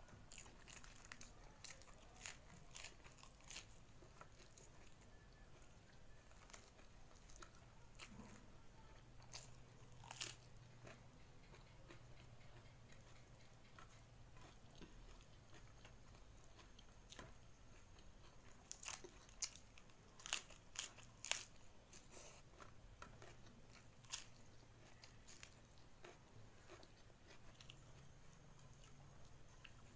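A person chewing a mouthful of rice and sambal petai: quiet, with scattered faint mouth clicks and a cluster of sharper clicks about two-thirds of the way through.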